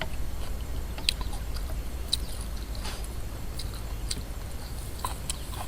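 Someone eating close to the microphone: quiet chewing with scattered short, crisp crunches and mouth clicks, about one a second, over a steady low hum.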